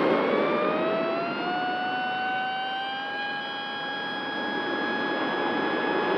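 Esky Eagle RC plane's electric motor and propeller heard from on board: a whine that rises in pitch as the motor speeds up over the first three seconds, then holds steady, over a rush of wind from the airflow.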